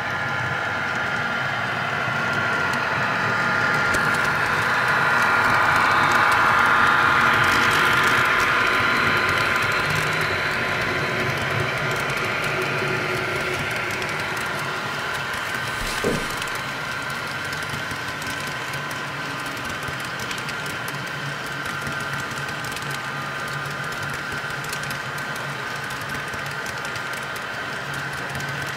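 Model train running past: a steady rolling rumble with a motor whine, loudest about six to seven seconds in, then settling to an even level as the long string of cars rolls by. A single sharp click sounds about sixteen seconds in.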